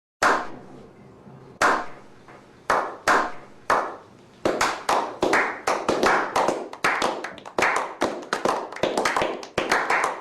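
Hand clapping that starts slow, single claps over a second apart, then speeds up into quick, closely spaced claps. Each clap rings on with a room echo.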